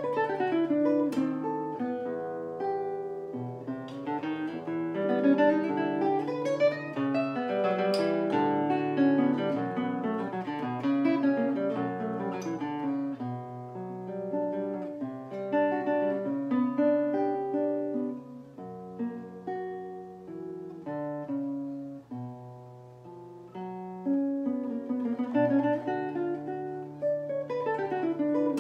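Solo classical guitar played fingerstyle: a continuous flow of plucked notes over a steady lower line. The playing grows softer about two-thirds of the way through, then swells again near the end.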